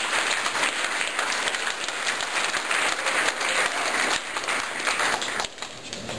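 Audience applauding a graduate, many hands clapping together; the applause dies down about five and a half seconds in.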